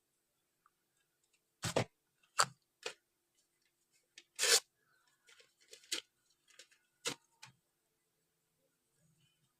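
Packaging being handled and opened by hand: a series of separate short rustles, clicks and scrapes, the longest about halfway through.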